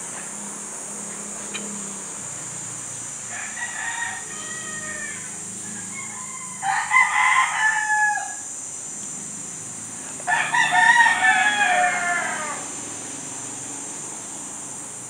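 A rooster crowing three times, each crow about two seconds long, the later two louder than the first, over a steady high hiss.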